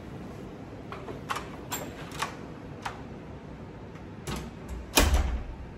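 A hotel room door being handled: several light clicks and knocks of the latch and handle, then the door thudding shut about five seconds in, the loudest sound.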